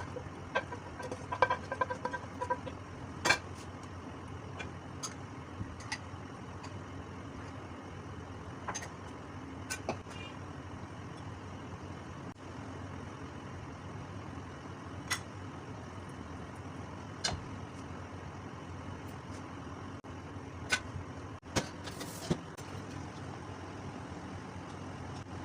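Steady kitchen hum with scattered sharp clicks and taps of metal utensils against cookware, including a short metallic ring about two seconds in.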